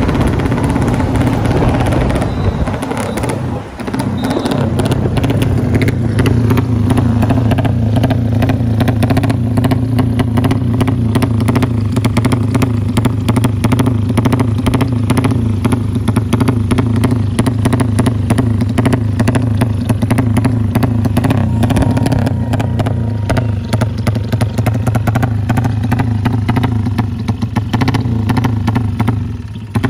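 Drag-style motorcycle engine with a bare racing exhaust, running hard and steady while ridden, with a brief dip in the note about four seconds in. The engine eases off just before the end.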